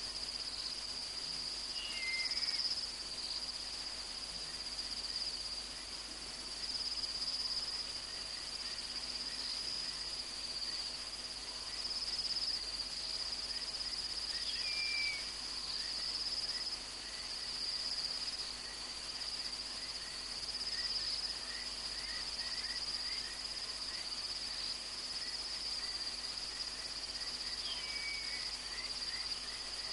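A night insect chorus of crickets giving a steady, high trill. A short falling whistle-like call sounds three times, about every thirteen seconds.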